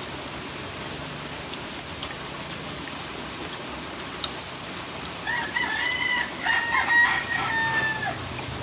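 A rooster crows once, starting about five seconds in: a call of about three seconds that ends in a long held note dipping slightly at the end. It is heard over a steady background hiss.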